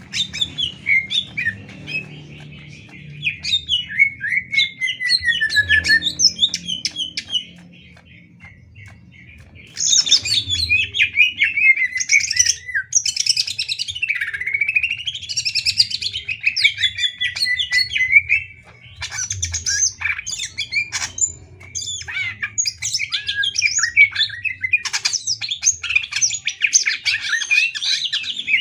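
Greater green leafbird (cucak ijo) singing a long, fast run of varied whistled notes that slide up and down, breaking off for about two seconds a third of the way in and then carrying on densely. A faint low hum lies underneath.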